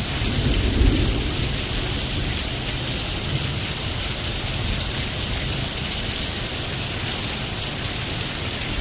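Steady rain falling, an even hiss of drops. A brief low rumble swells and fades about a second in.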